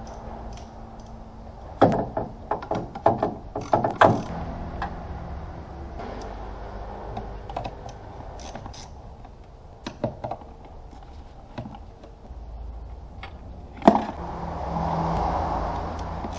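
Hand work on parts in a car's engine bay: a quick run of clicks, taps and knocks about two seconds in, a few more near the middle, and one sharp knock near the end, followed by a brief rise in rustling noise, over a low steady hum.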